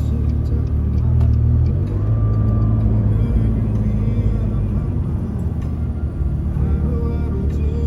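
McLaren 12C's twin-turbo V8 and road noise heard from inside the cabin while driving, a steady low hum.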